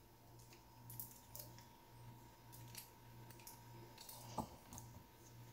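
Near silence, with a few faint clicks and taps from a plastic Barbie doll being handled. The loudest click comes about four and a half seconds in.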